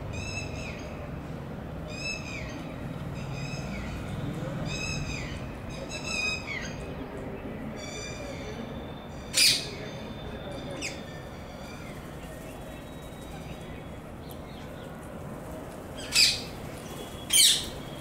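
Rose-ringed parakeets calling: a string of arching squawks about one a second for the first several seconds, then three short, loud, shrill shrieks, one near the middle and two close together near the end.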